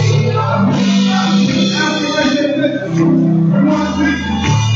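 Live gospel worship song: women singing into microphones over a band with keyboard and drum kit.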